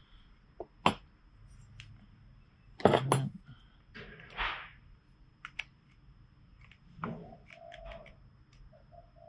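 Hand tools and small metal brake parts handled on a workbench while a motorcycle brake master cylinder is taken apart with pliers: scattered clicks and clinks, with the loudest clatter about three seconds in.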